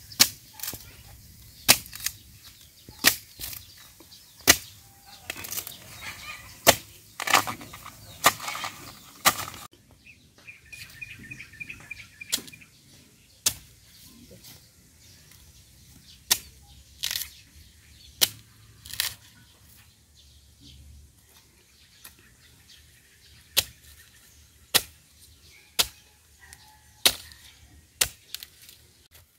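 Repeated sharp strikes of a digging tool into the ground as bamboo shoots are dug up: single hard chops, roughly one a second with irregular pauses.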